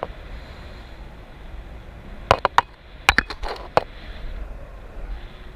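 Steady wind rushing over the camera microphone during a parasail ride. A quick run of sharp clicks or knocks cuts through it, a few a little past two seconds in and several more around three seconds in.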